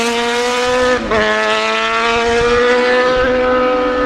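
Racing superbike engines running at high revs at speed, a steady high engine note that breaks briefly about a second in and climbs slightly in pitch later on.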